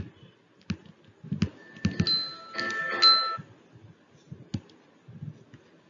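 A brief chime of a few steady tones sounding together, from about one and a half to three and a half seconds in, with scattered light clicks and taps around it.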